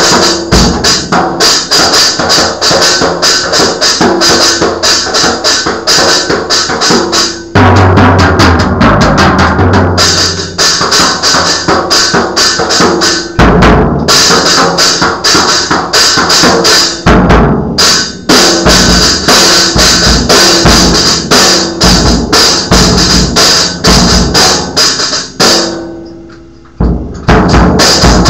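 Drum kit played loud and fast in a busy freeform jam, with dense snare and bass drum hits and cymbals over the top. Near the end the playing breaks off briefly and the kit rings down, then the beating starts again.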